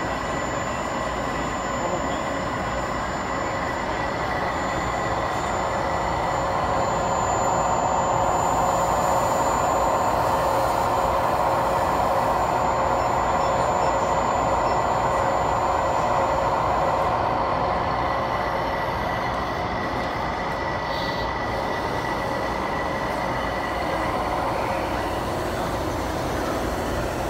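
Radio-controlled hydraulic construction models' electric motors and hydraulic pumps running, a steady whine over a rough hum. It swells louder a few seconds in and eases back after the middle.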